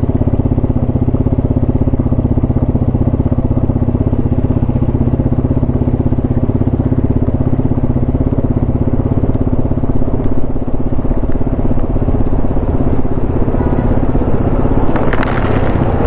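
Motorcycle engine running steadily while riding on a wet road, with an even low throb. Near the end a broader rush of noise builds as an oncoming truck approaches.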